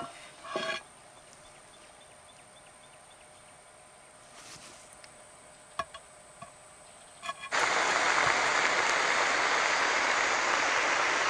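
Yucca blossoms cooking in butter in a cast-iron skillet, sizzling loudly and steadily once it starts abruptly about seven and a half seconds in. Before that, a knock and a short ringing clink of the skillet being handled, then a few light ticks.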